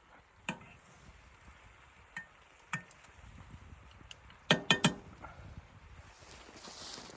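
Sharp clinks and knocks of hard objects striking each other: a few single ones, then a quick run of four louder ones about halfway, followed by a soft rustle near the end.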